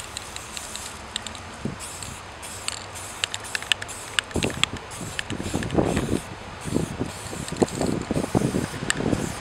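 Aerosol spray paint can spraying in many short hissing bursts as a letter is painted on a wall, with irregular low thumps in the second half.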